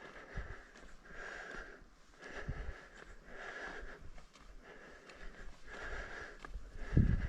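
A person breathing in a steady rhythm, about one breath a second, with heavy low thumps near the end.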